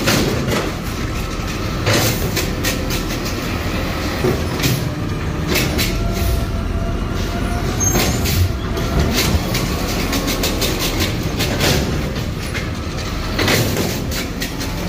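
Automated side-loader garbage truck running, its hydraulic clamp arm working, with repeated sharp clanks and knocks as plastic carts are gripped, lifted and emptied into the hopper.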